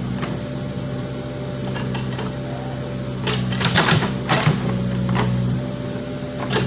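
Backhoe loader's diesel engine running steadily under work, with short clattering knocks about halfway through.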